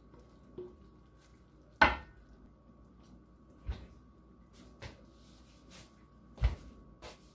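A few scattered knocks and clatters as a wooden cutting board and spatula are handled and set down beside a frying pan. The loudest knock comes about two seconds in and rings briefly, followed by three softer ones.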